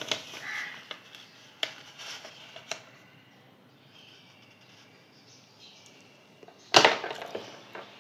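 Hands handling sheets of paper on a clipboard: a few light clicks and taps in the first three seconds, then a louder, brief paper rustle about seven seconds in.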